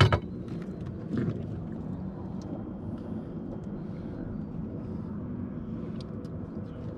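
Boat motor running steadily with a low hum, with a sharp knock right at the start and a shorter one about a second in.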